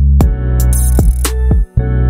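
Background music with a heavy bass and drum beat, cutting out for a moment near the end.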